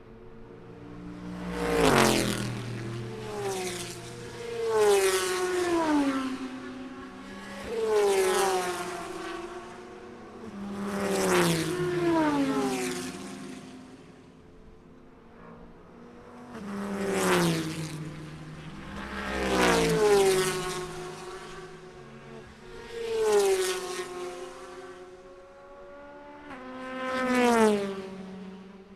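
Endurance race cars passing a trackside spot one after another, about eight loud passes, each engine's pitch dropping as the car goes by.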